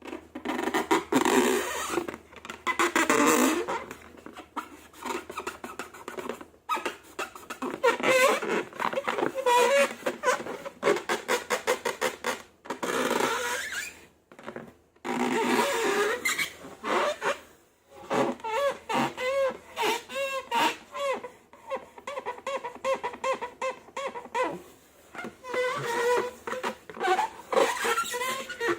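Slime squelching and rubber balloons squeaking as they are squeezed and handled, in a quick run of short wet squishes and wobbly squeaks with a few brief pauses.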